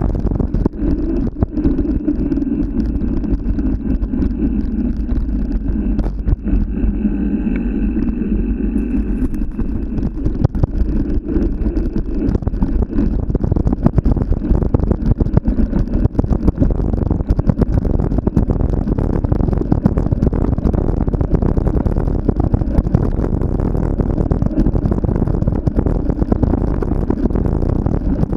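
Steady low rumble with wind buffeting the microphone, and a faint steady hum in the first few seconds that fades out a little before the halfway point.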